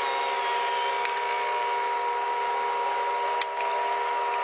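A steady machine hum made of several constant tones, with a couple of light clicks, one about a second in and one past the three-second mark.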